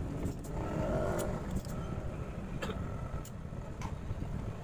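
Steady low background rumble, like road traffic, with a few sharp light clicks and taps from tools and a circuit board being handled at the bench.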